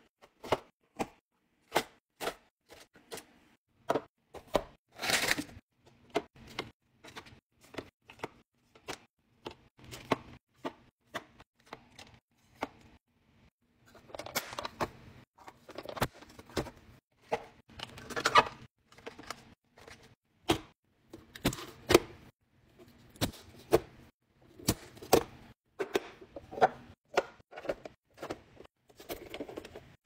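Packaged snack cups being set into clear plastic organizer bins: a long run of sharp plastic clacks and taps, one every second or less. Packaging rustles and crinkles about five seconds in and through a longer stretch past the middle.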